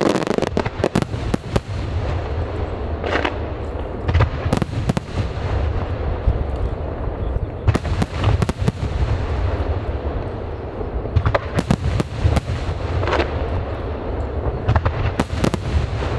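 Aerial fireworks display bursting: sharp bangs and crackles come in clusters every few seconds over a continuous low rumble of shells going off.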